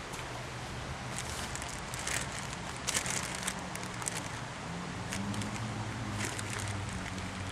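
Footsteps and rustling in brush, heard as scattered crackles over steady outdoor noise. A low engine hum comes in about five seconds in.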